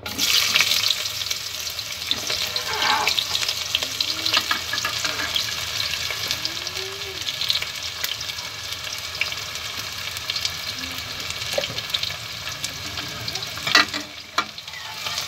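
Sliced onions sizzling and crackling in hot oil in a pressure cooker, starting suddenly as they drop in, while a steel ladle stirs them. There are a couple of sharp knocks near the end.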